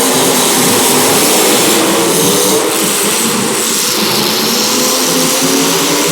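Engines of several demolition derby cars running and revving together, loud and continuous.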